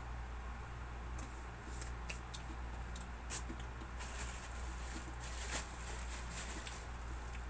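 Plastic bag crinkling and rustling in the hands, with scattered sharp clicks, densest from about halfway through, over a steady low hum.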